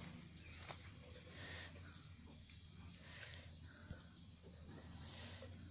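Faint, steady high-pitched chirring of insects, unbroken, with a few small clicks here and there.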